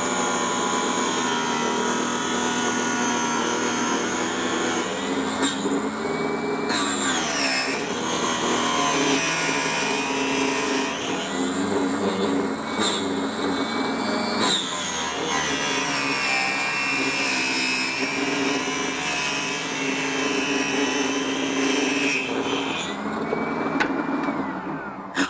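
Electric power saw running as it cuts through ABS plastic, its motor pitch dipping and recovering several times under load, then switching off near the end.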